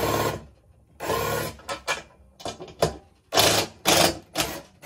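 Power drill with a straight screwdriver bit spinning in a series of short bursts, backing out the slotted tension rods of a Sonor D506 snare drum.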